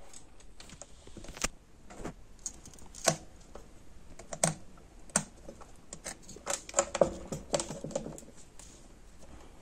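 Irregular light clicks and taps of small parts being handled, thickest about seven to eight seconds in.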